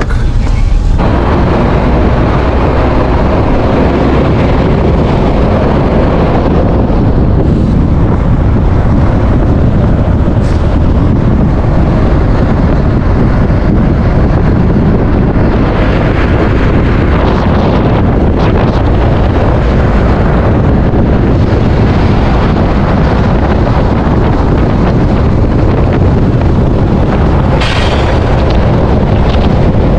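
Interior of a moving bus: a steady, loud rumble of engine and road noise, with wind buffeting the microphone.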